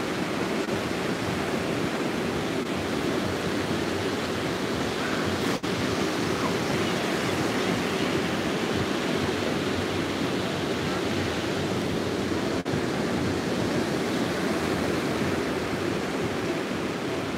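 Surf breaking on a sandy beach: a steady, unbroken wash of wave noise, dropping out for an instant twice.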